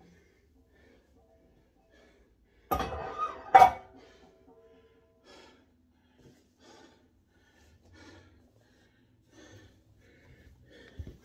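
Two sharp metal clanks about three seconds in that ring on briefly, amid a weightlifter's heavy breathing. A dull thump comes near the end.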